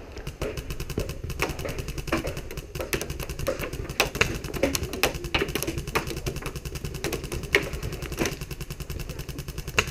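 Sustained automatic fire from skirmish-game replica guns: a fast, even mechanical clatter of many shots a second, with sharper cracks standing out every half-second or so.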